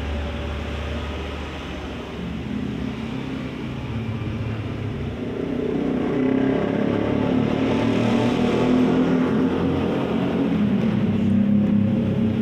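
A motor vehicle's engine running with a steady low rumble, getting louder about halfway through.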